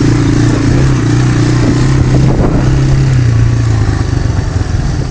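Engine of a Mule utility vehicle running at a steady speed while being driven, easing off slightly near the end.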